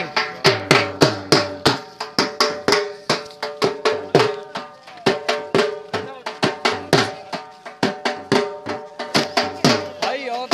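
Drums beaten in a fast, steady rhythm, about three strikes a second, over a few steady held tones.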